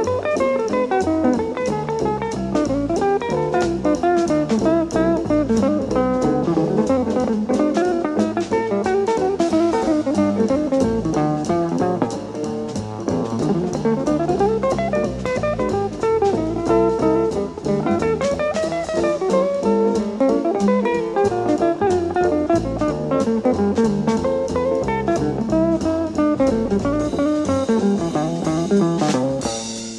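Jazz recording of two archtop electric guitars playing melody and comping lines over a double bass and a drum kit keeping time on cymbals. There is a strong accent near the end.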